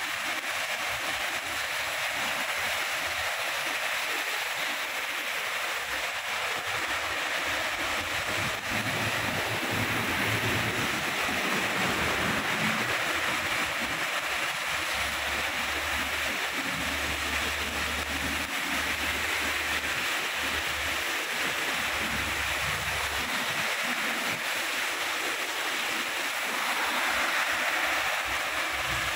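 Heavy rain falling steadily, an even hiss. In the middle of the clip a low rumble of road traffic joins it for about fourteen seconds.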